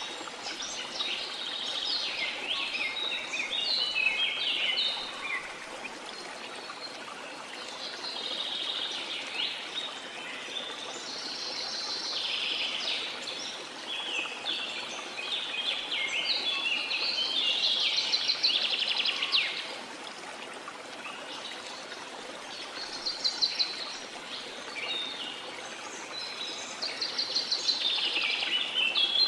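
Songbirds singing in high, quick trilling phrases that come every few seconds, over a steady rushing hiss like running water.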